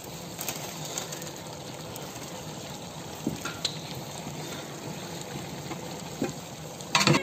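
Mutton gravy sizzling and bubbling steadily in a large cooking pot, with a few faint ticks and one short knock near the end.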